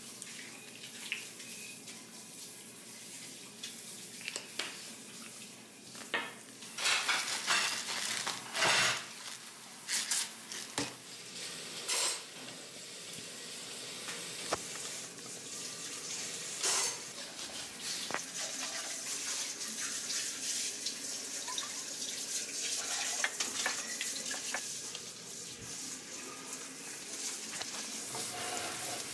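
A fork and then a spatula clink and scrape in a mixing bowl as food is whisked and tossed, with sharp clatters from about seven to twelve seconds in. In the second half a steady sizzle of food frying in a pan builds.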